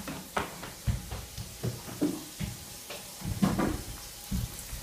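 Footsteps and a small dog scampering on a tiled floor during a chase game: irregular thumps and light clicks.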